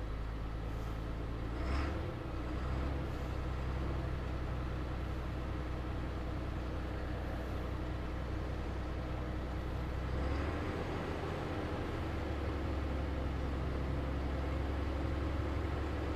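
MAN TGL lorry's six-cylinder diesel engine idling steadily, just revived after standing for over a year and running smoothly. Its low note shifts slightly about ten seconds in.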